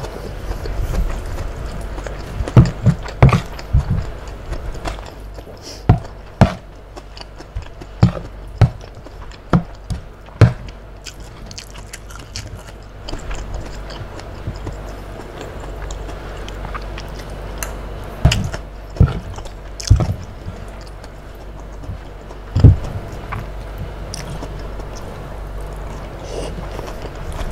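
Close-miked eating: chewing and mouth sounds of soft tofu and noodles in peanut sauce, with a metal spoon clicking and scraping on the tray in sharp, scattered strokes.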